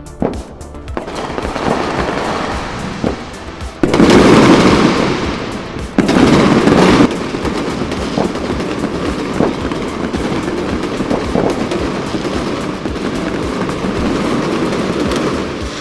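Fireworks going off in a dense, continuous crackling barrage, with two loud bursts about four and six seconds in.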